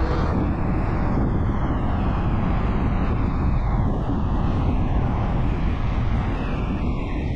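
Steady road and wind noise from a vehicle travelling on the highway, a dense continuous rush.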